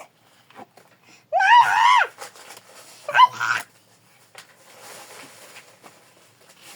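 A child's high-pitched shout, one long yell about a second and a half in, then a shorter cry about a second later.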